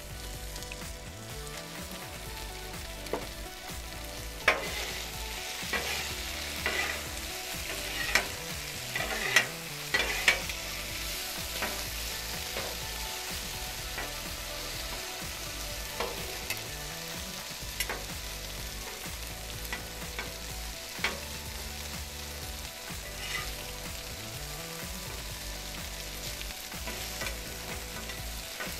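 Beef strips sizzling in oil on a Blackstone flat-top griddle while metal spatulas toss them. The blades scrape and clack against the steel plate in a run of sharp clicks that is busiest in the first half and sparser later.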